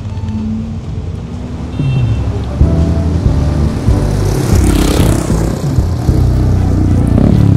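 Intro music with deep, sustained bass tones that grow louder about two seconds in, and a whoosh that rises and falls about halfway through.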